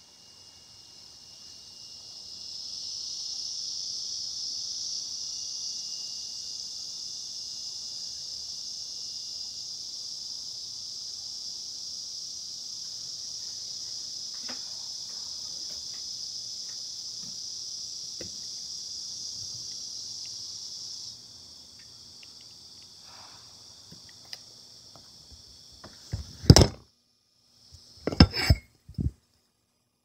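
Café background: a steady high-pitched hiss that builds over the first few seconds, holds, then cuts off abruptly about two-thirds of the way through. It is followed near the end by a few loud clatters of dishes.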